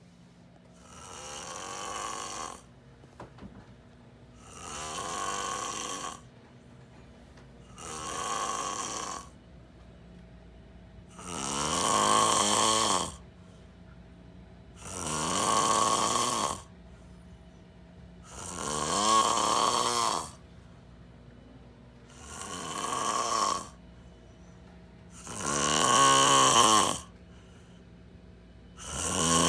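A sleeping person snoring very loudly, one long snore every three to four seconds, each lasting one to two seconds, the later ones louder.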